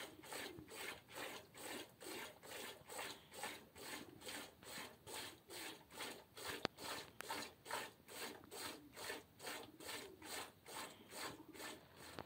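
Hand-milking a cow into a plastic bucket: rhythmic squirts of milk hissing into the pail, about two and a half strokes a second.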